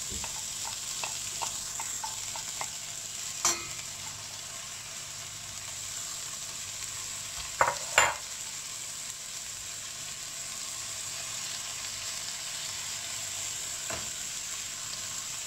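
Chopped spinach sizzling in hot oil with fried onion and garlic in a stainless steel pan, a steady hiss. A spatula stirring the greens knocks against the pan a few times; the loudest two knocks come close together about eight seconds in.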